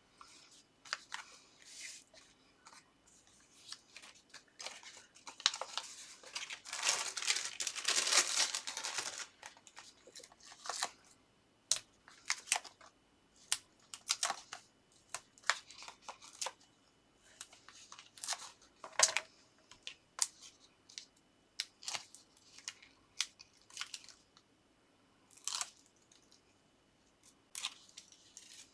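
Paper and card being handled and worked by hand: scattered short rustles, taps and clicks, with a longer, louder stretch of paper noise about seven to nine seconds in.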